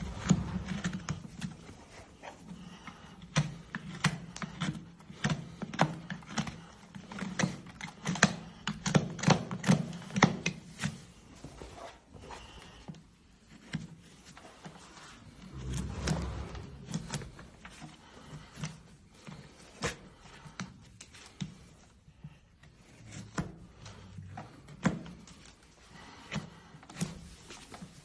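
Farrier working on a horse's hind hoof: a run of irregular sharp clicks and scrapes from the tools on the hoof, dense for the first ten seconds or so, then sparser with a few louder knocks.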